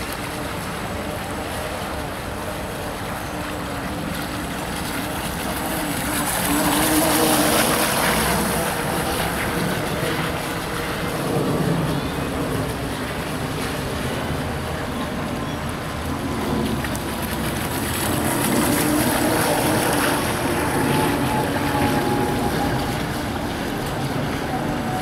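Wind on the microphone in gusts over water, with the faint, steady whine of a small RC hydrofoil boat's electric outrunner motor running out on the water.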